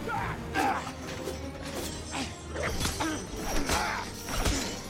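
Film soundtrack mix of music with repeated crashes and metallic impacts, several sharp hits spread through it.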